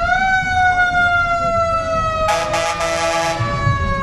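Fire truck siren: a single loud wail that has just wound up and now slowly falls in pitch. About two seconds in, a harsh blast lasting about a second sounds over it.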